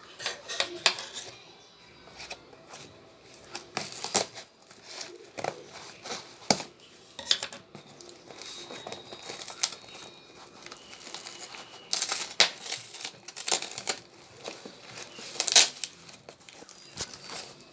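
Brown paper parcel wrapping being torn open by hand: the paper crinkles and rips in irregular short bursts.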